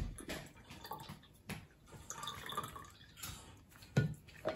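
Fresh mandarin juice pouring and dripping from a plastic hand citrus juicer into a glass pitcher, with a few light knocks scattered through and a sharper one about four seconds in.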